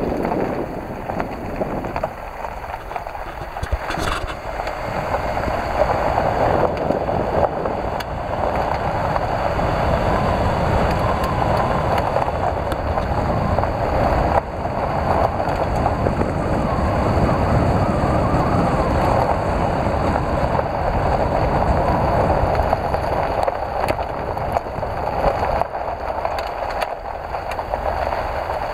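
A car driving on a loose gravel road, heard from inside the cabin: steady tyre crunch on gravel over a low road rumble.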